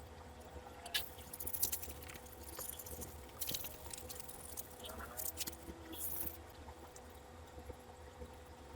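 Faint, irregular scratching and clicking of a coin being scrubbed and handled during cleaning, in short bursts over a steady low hum.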